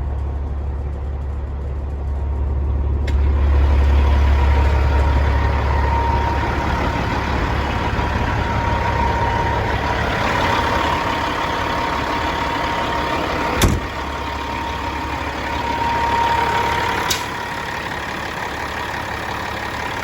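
Caterpillar 3406E inline-six diesel idling steadily, heard up close. A thin whine comes and goes through the middle, and there are two sharp knocks, about 13.5 and 17 seconds in.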